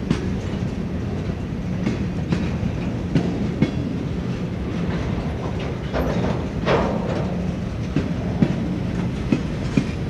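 Freight cars rolling past at speed: a steady rumble of steel wheels on rail with irregular clicks as the wheels cross rail joints, and a brief louder burst about two-thirds of the way through.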